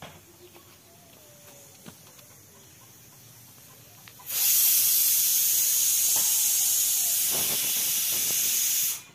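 A loud, steady, high-pitched hiss starts abruptly about four seconds in and cuts off just before the end.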